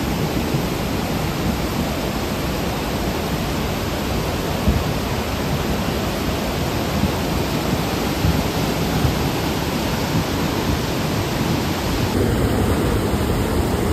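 The Beas river in flood, a muddy torrent running over boulders: a loud, steady rush of water. About twelve seconds in, the sound changes abruptly as the recording cuts to another shot.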